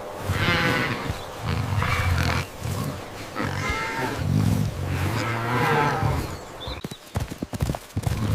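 Cattle mooing: about four long, low calls in a row, followed near the end by a quick run of clicks.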